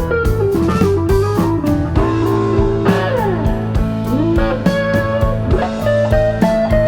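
Background music: electric guitar melody with sliding notes over bass and a steady drum beat.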